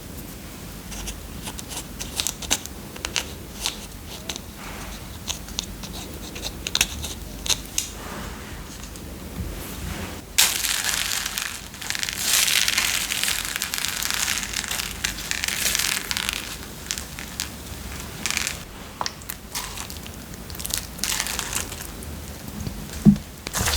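Slime-making handling sounds, crisp crunching and crackling: scattered sharp crackles at first, then a dense, louder stretch of crunching from about ten seconds in that lasts roughly eight seconds, then scattered crackles again.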